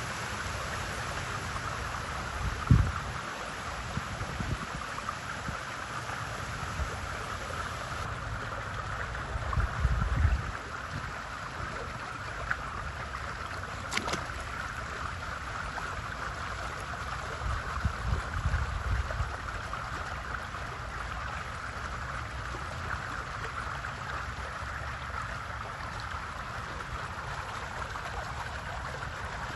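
Steady hiss of circulating swimming-pool water, with wind rumbling on the microphone a few times, around 3, 10 and 18 seconds in.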